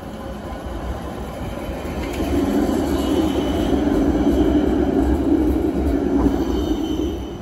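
Transtech Artic low-floor tram passing close by on a curve, its rolling and motor sound growing louder about two seconds in and staying loud as it goes past. A faint high wheel squeal comes in briefly about three seconds in.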